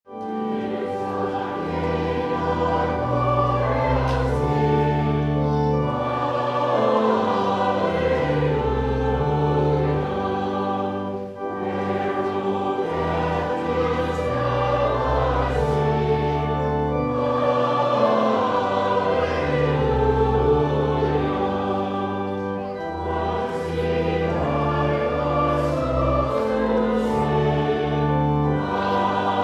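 A choir singing a slow hymn in held chords, the notes changing every second or two, with a short breath-like break about eleven seconds in.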